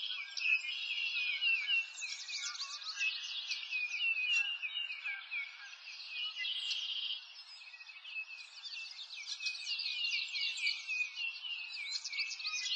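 A chorus of small birds chirping and twittering continuously, many quick high calls overlapping, a little softer around the middle.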